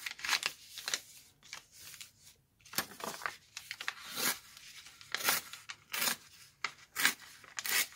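Coffee-dyed paper being folded, creased and torn by hand, with the sheets rustling and sliding against each other: a string of short, irregular rustles and rips.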